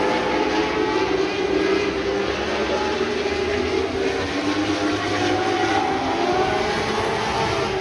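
Several winged lightning sprint car engines racing on a dirt oval, overlapping engine notes rising and falling as the cars accelerate and lift through the turns.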